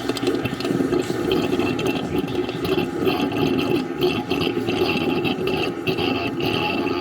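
Ucclife 1.5 kg mini washing machine running with water in its tub, a steady watery wash noise that goes on without a break.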